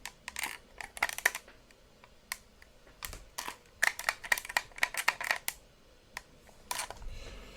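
Small plastic buttons on a Flipper Zero being clicked through its menus: short, sharp clicks, scattered at first and then in a quick run in the middle.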